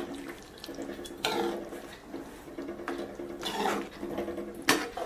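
A spoon stirring wet, thick chicken curry in a pan. There are squelching scrapes about a second in and again past the middle, and one sharp clack near the end.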